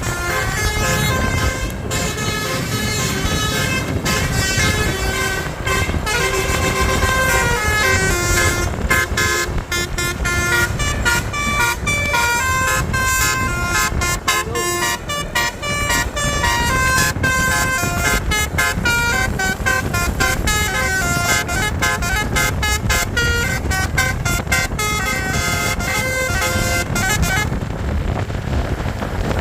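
Bus 'basuri' telolet horn, a set of electrically switched air-horn trumpets, playing a long tune of quick stepped notes over low vehicle noise. The horn stops about two seconds before the end, leaving only the vehicle noise.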